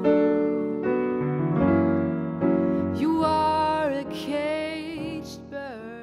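Closing bars of a jazz song played by a piano trio: piano chords over a low bass line, with a wordless sung line sliding in pitch over them in the second half, dying away at the end.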